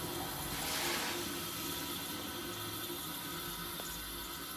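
Refrigerant hissing as it flows through the sealed system of a late-1960s Sears Coldspot 6,000 BTU window air conditioner winding down after shut-off, the pressures equalizing. The hiss swells about a second in, then slowly fades.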